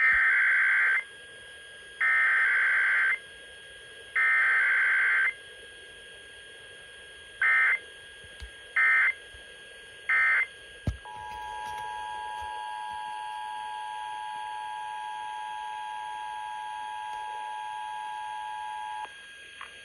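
Emergency Alert System test tones: three long and three short bursts of digital data tones (the EAS header code), then the two-tone attention signal, two steady pitched tones sounding together for about eight seconds before stopping abruptly.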